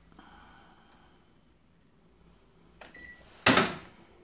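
A short electronic beep from a washing machine's control panel as a button is pressed, followed about half a second later by a much louder clunk.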